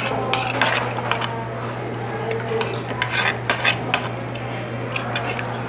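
Metal spoon and fork scraping and clinking against a plate as food is scooped up, in a few short clusters of clinks, over a steady low hum.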